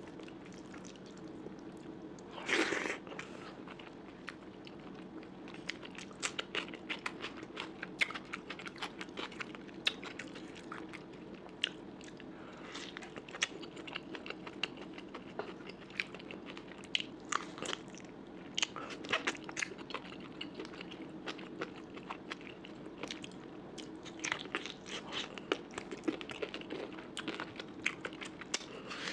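A person chewing and biting food close to the microphone, with many irregular crunchy clicks and a louder crunch about two and a half seconds in, over a steady low hum.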